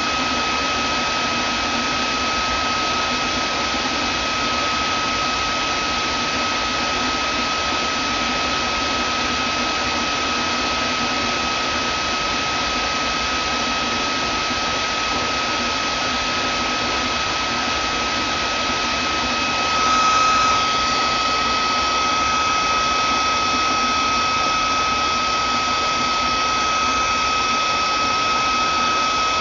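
Vacuum cleaner running steadily: a continuous hiss with a high, steady motor whine. About two-thirds of the way through it briefly swells louder and the whine shifts slightly, then settles.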